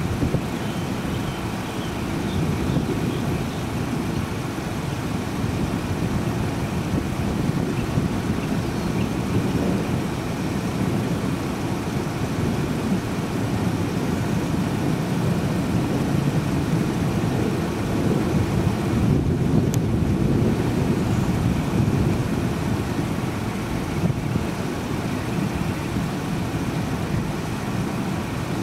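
Wind buffeting the microphone outdoors: a steady, fluttering low rumble of noise with no distinct events.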